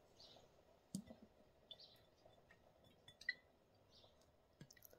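Faint, scattered clicks and small ticks as the plastic cap of a soy sauce bottle is twisted open by hand, with one sharper click about three seconds in.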